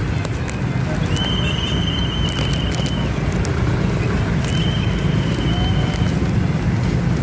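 Street traffic noise: motorbikes and cars running past, with a heavy low rumble. A high, steady tone sounds twice, each time for about two seconds.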